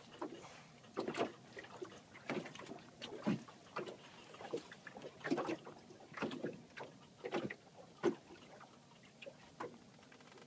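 Fishing reel being wound against a hooked fish on a bent rod, aboard a kayak, in short uneven bursts about once a second.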